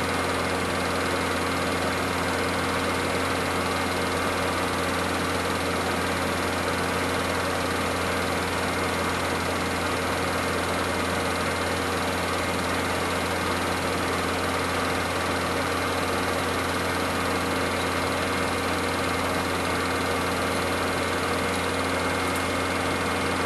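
An 8mm film projector running steadily, its motor and fan giving an even hum and whir.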